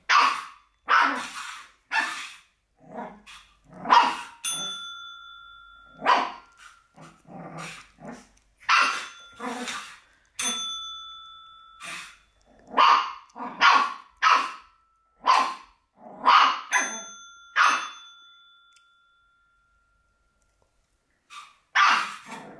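Shih Tzu puppy barking in short yaps over and over, some with a growl, while a desk bell that it presses dings about five times, each ring hanging on for a second or so. It falls quiet for a few seconds before one last bark near the end.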